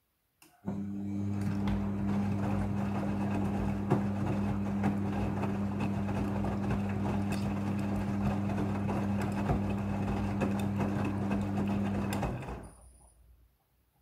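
Midea front-loading washing machine's drum motor starting with a click about half a second in and turning the drum with a steady hum while the wet laundry tumbles inside, then stopping and running down about twelve seconds in.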